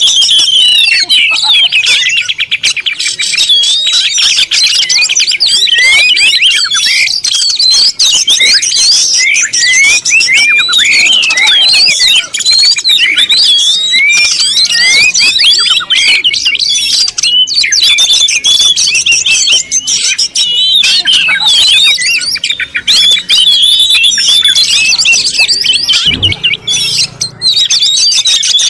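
Many birds chirping and calling at once, a dense, loud, continuous flock chatter of short overlapping chirps and squawks, with a brief low thump near the end.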